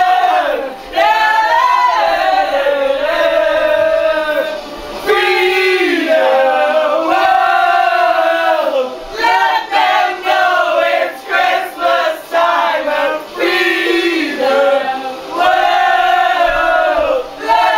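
Many voices, men and women together, singing a chorus loudly as a crowd in long held phrases with short breaks between them.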